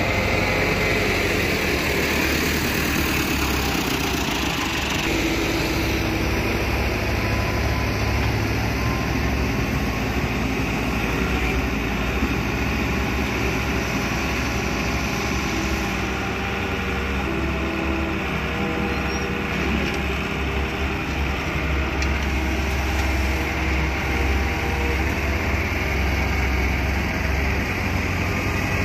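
Doosan wheeled excavator's diesel engine running steadily as the machine works, digging and swinging its boom with the load in the bucket.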